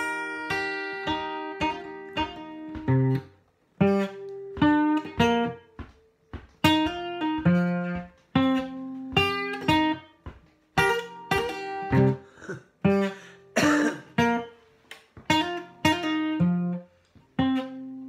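Steel-string acoustic guitar with a capo, played without singing: short phrases of picked notes and chords that ring out, each followed by a brief near-silent break before the next.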